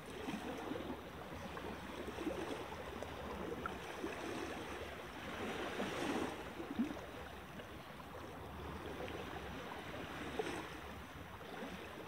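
Small waves lapping at a rocky shoreline: a steady wash that swells about halfway through and again near the end.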